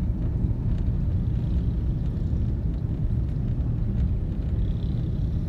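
Steady low rumble of a vehicle driving along a busy street: engine and road noise.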